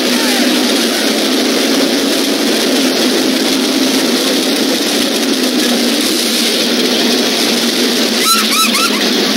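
Pro Stock drag cars' V8 engines idling near the starting line, heard as a steady loud drone. A few short high chirps cut in about eight seconds in.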